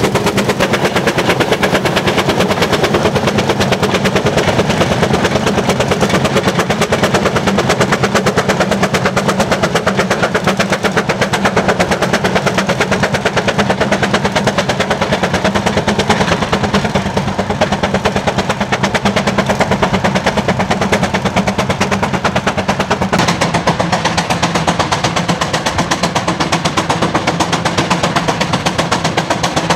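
An engine running steadily with a rapid, even beat.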